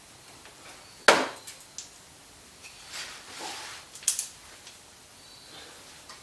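Hand tools and plastic bumper fasteners being worked during front bumper removal: one loud sharp knock about a second in, a few lighter clicks, a short scraping rustle, and another sharp double click about four seconds in.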